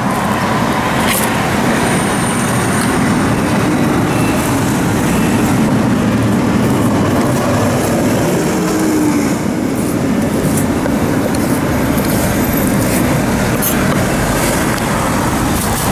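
Steady road traffic noise, with a few sharp taps of a kitchen knife on a wooden cutting board as cooked offal is sliced.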